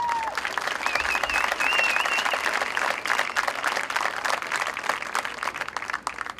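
Crowd applauding and cheering, with a high wavering whistle or whoop in the first couple of seconds; the clapping dies away near the end.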